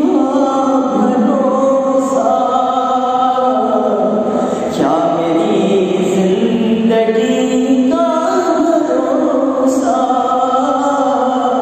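A man singing an Urdu devotional salaam in long, drawn-out melodic lines, the notes sliding and held.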